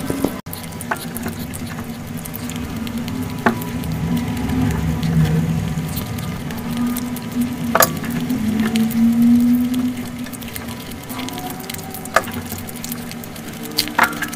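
Close-miked eating sounds: fingers scraping, mixing and squishing mutton biryani rice and meat on a plate, with a few sharp clicks along the way.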